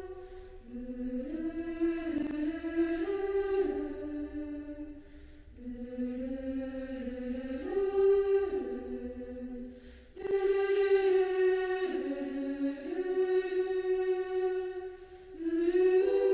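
Background music: a slow melody of long held notes that step up and down, with a choir-like sound, in phrases of about five seconds.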